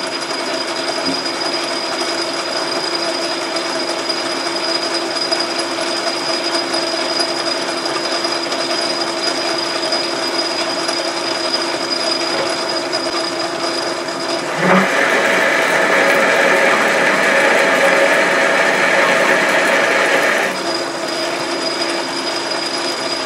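Logan metal lathe running steadily with a constant whine, a four-jaw chuck spinning on its spindle. About fifteen seconds in, a louder, rougher cutting noise starts as the tool takes a pass inside the chuck's threaded bore to enlarge the threads, lasting about six seconds before the lathe runs on alone.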